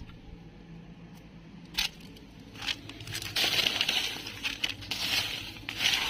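Rustling and crackling of dry debris being disturbed, with a couple of sharp clicks about two and three seconds in, then a longer stretch of rustling in the second half.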